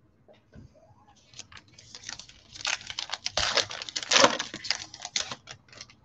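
Foil trading-card pack wrapper crinkling and tearing as gloved hands open it, a dense crackle that builds from about a second in, is loudest in the middle and tails off near the end.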